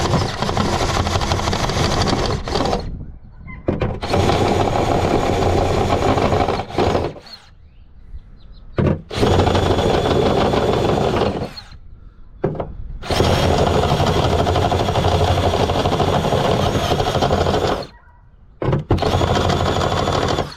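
Power drill running in five bursts of a few seconds each with short pauses between, widening pilot-drilled bolt holes in a car's trunk lid with a bigger bit.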